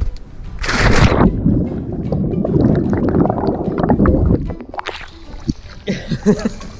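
A big splash as a person jumps into a swimming pool. It is followed by about three seconds of muffled bubbling and gurgling heard underwater, which thins out as the sound comes back to the surface.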